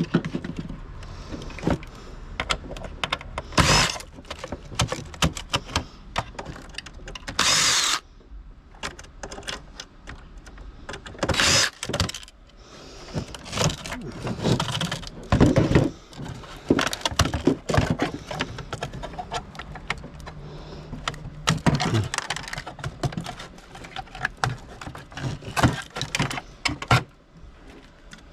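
Scrap metal and electronic parts being handled, pulled apart and tossed into piles: a run of irregular knocks, clicks and clatter, with a few short, louder rushes of noise.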